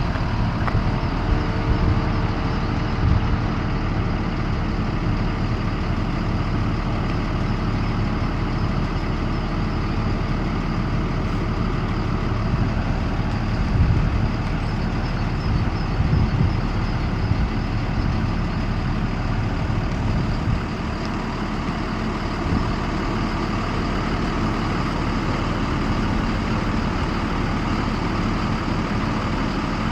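School bus engine idling steadily, with a few brief louder moments.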